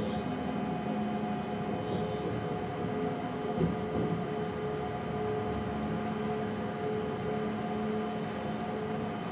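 Train heard from the driver's cab, rolling slowly over station tracks and points: a steady drive hum over rumbling wheels, with a knock a few seconds in and brief high-pitched wheel squeals, once early and again near the end.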